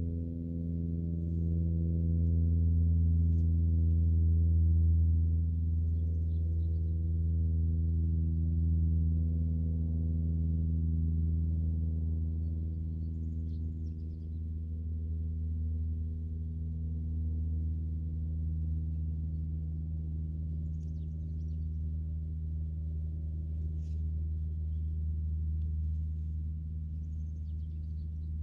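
Ambient background music: a low drone of held tones that shifts slowly from chord to chord, with faint bird chirps now and then.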